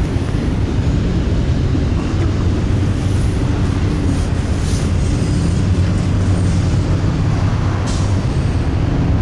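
Double-stack container freight train rolling past: a steady, loud rumble of the cars on the rails.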